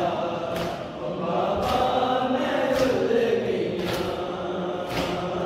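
Male voices chanting a noha (Shia lament) together, with a sharp slap about once a second from chest-beating (matam) keeping time.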